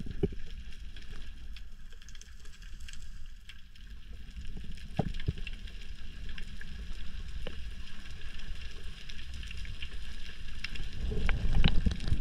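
Underwater ambience picked up by a camera in its housing: a steady low water rumble with faint scattered crackling and a few sharp clicks, the rumble and clicks growing louder near the end.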